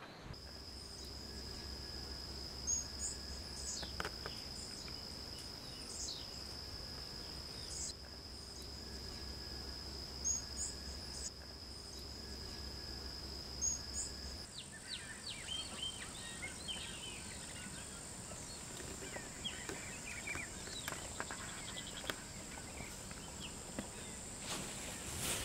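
A steady high-pitched insect drone with scattered short bird chirps over it, and a faint whistle repeated about every second. About halfway through, the sound cuts to a higher insect drone with a quick jumble of short falling bird notes.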